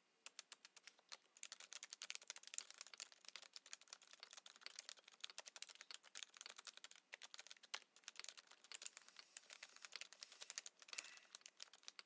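Rapid typing on a Topre-switch keyboard: a faint, dense, uneven stream of soft keystrokes, several a second.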